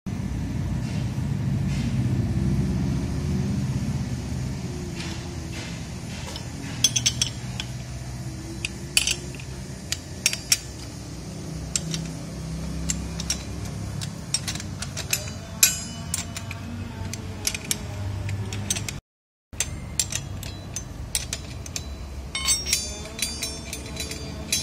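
Metal clinks and rattles of a brush cutter's steel blade and its hub nut being handled, the sharpest taps ringing briefly, over a steady low rumble.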